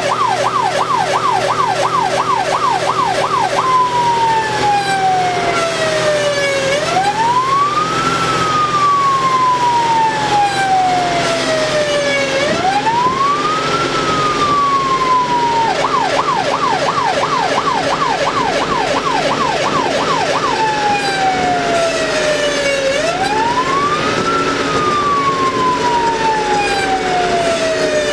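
Fire engine's siren heard from inside the cab, switching between a fast yelp of about three up-down sweeps a second and a slow wail that rises quickly and falls over four or five seconds. The fast yelp comes at the start and again around the middle. The truck's engine drones steadily underneath.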